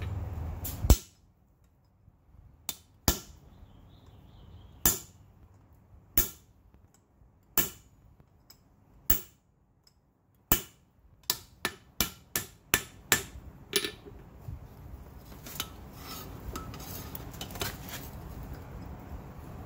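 Hammer blows on a hand punch driving a hole through hot flat bar stock on an anvil, the first stage of punching a rivet hole. Single sharp strikes about a second and a half apart, then a quicker run of about eight blows around eleven seconds in, then a few fainter knocks.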